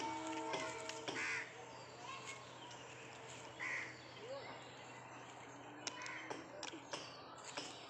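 Dog gnawing a bone, the teeth on bone giving sharp clicks and crunches, while crows caw a few times in the background. A steady pitched tone sounds briefly near the start.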